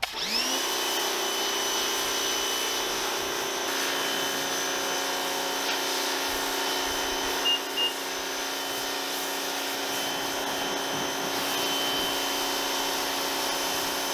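Portland 1750 electric pressure washer starting as the gun trigger is pulled, its motor and pump whining up to speed within half a second, then running steadily with the hiss of the water jet as the car is rinsed. Two short high chirps about seven and a half seconds in.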